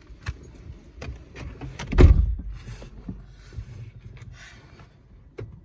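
Handling noises inside a car: scattered clicks and short rustles, with one heavy thump about two seconds in.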